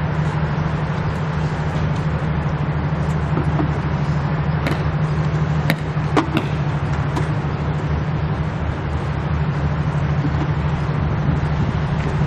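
Steady low engine drone, one unchanging hum under a rushing noise, with a few sharp clicks about five to six seconds in.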